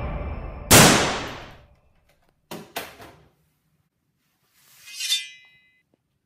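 A loud crash with a ringing decay about a second in, as a toy blaster is thrown down, then two lighter knocks. Near the end comes a rising metallic 'shing' with a brief ring: a sword-drawing sound effect laid over a foam sword being pulled from a coat belt.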